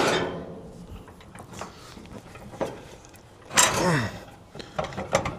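Light metal clicks and scraping as the condenser fan motor is handled in its loosened mounting bracket, with a short vocal sound about four seconds in.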